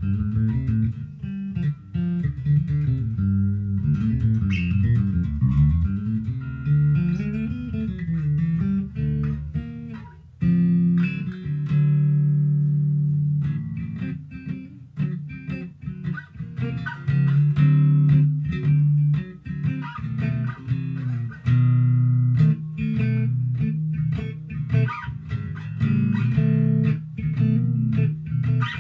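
Squier Affinity six-string electric bass played solo: notes that slide up and down in the first third, a brief drop about a third of the way in, then held low notes before quick picked lines with a clear pluck on each note.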